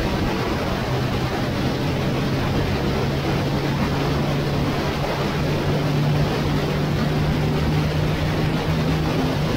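Motorcycle engine running steadily at cruising speed, its note rising a little partway through, over a steady rush of wind and road noise.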